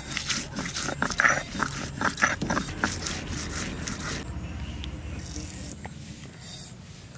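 Stone muller rocked and rolled over chopped onions on a stone grinding slab (sil-batta), crushing and scraping in quick irregular strokes, then stopping about four seconds in.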